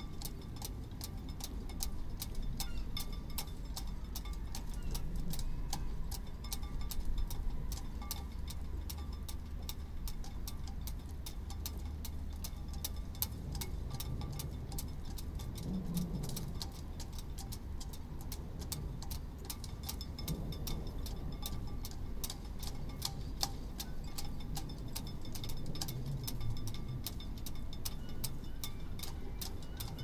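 Sailboat halyards tapping against masts in the wind: sharp, irregular ticking and clinking several times a second, over a low wind rumble.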